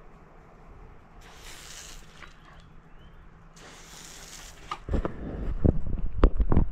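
Two short hissing bursts of water spray from a garden hose nozzle, about a second in and again just before four seconds. From about five seconds on, loud thumping and rubbing of hands handling the camera.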